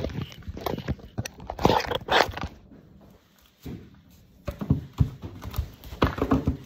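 Bare feet stepping on and off a plastic exercise step platform on a wooden floor: a run of dull thumps and knocks, broken by a lull of about two seconds in the middle.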